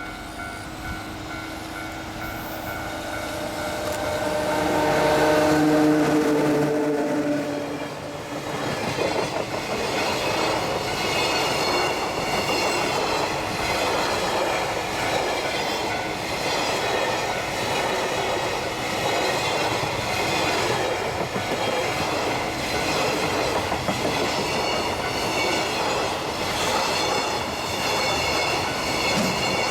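EF66 electric locomotive passing at speed. It is loudest about six seconds in, and its tone drops in pitch as it goes by. After it, a long train of container wagons rolls past with steady wheel clatter and a high squeal, while a level crossing alarm rings at the start.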